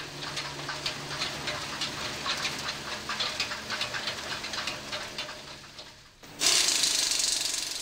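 Compact tractor engine running with a rapid, irregular clatter as its wheels bump over the concrete ribs of a test track. About six seconds in the clatter stops and a loud steady hiss takes over.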